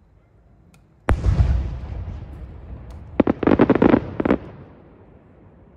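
Aerial fireworks: a shell bursts with a loud boom about a second in, its rumble fading away, then a rapid string of sharp cracks from a cluster of small bursts about two seconds later.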